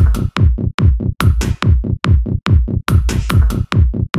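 Electronic techno track at 143 beats a minute: a drum-machine kick on every beat, each with a falling low thud, and short, crisp high percussion hits between the kicks.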